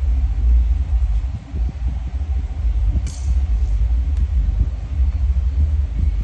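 A loud, steady low rumble with no clear source, and a short rustle about three seconds in.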